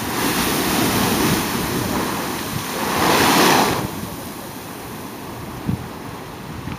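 Seawater rushing through a blowhole in lava rock: a steady wash of surf, louder for about a second around three seconds in as the hole surges up and foams, then quieter as the water drains back.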